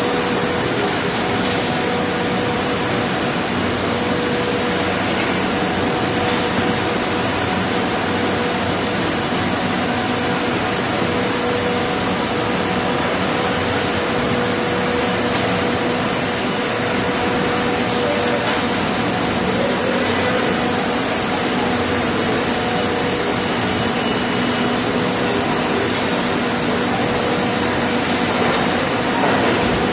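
Steady industrial din of a meat-plant boning room: a constant loud hiss of running machinery with a steady hum underneath.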